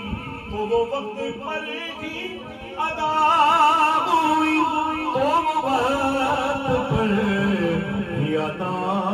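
A man singing a naat, an Islamic devotional song, into a microphone: long notes with a wide waver and ornamented turns in the melody.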